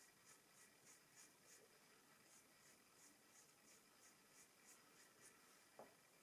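Soft pastel stick scratching over pastel paper in short, quick strokes, about three a second, with a brief pause about two seconds in; faint. A brief knock near the end.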